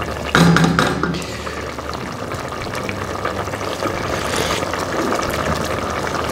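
Lamb broth bubbling in a steel stockpot while it is stirred with a spoon. A short, louder utensil sound comes about half a second in.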